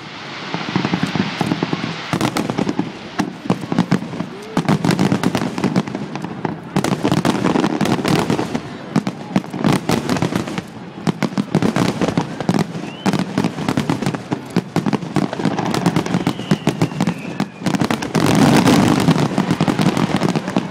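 Aerial firework shells bursting in rapid succession, many sharp bangs a second over a continuous crackle, growing busiest and loudest near the end.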